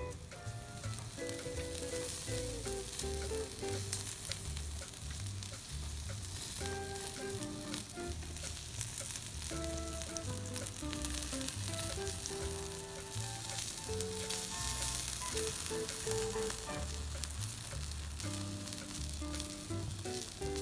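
Food sizzling steadily as it cooks, under background music with a melody and a pulsing bass line.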